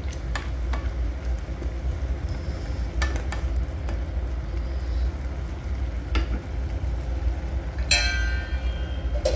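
Wooden spatula stirring and scraping a wet potato and moringa-flower poppy-seed curry in a metal pan, with a few sharp knocks against the pan. About eight seconds in, a metal clink rings briefly.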